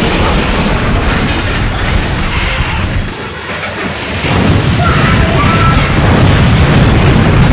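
Explosion sound effect: a loud booming rumble. It dips briefly about three seconds in, then swells back up and keeps rumbling.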